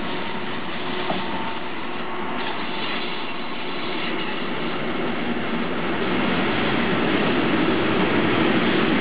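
Freight train passing: a red Railion electric locomotive goes by, followed by wagons loaded with logs rolling over the track. The rolling noise grows louder from about six seconds in.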